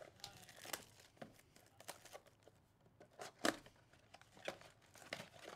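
Plastic shrink-wrap being torn and crinkled off a Topps Chrome baseball blaster box of trading cards: a series of short, irregular crackles, the loudest about three and a half seconds in.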